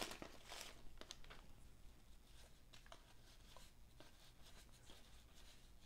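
Near silence with faint handling of a just-opened pack of 1989-90 NBA Hoops basketball cards: a few soft, scattered clicks and slides as the cards are thumbed through in the hands.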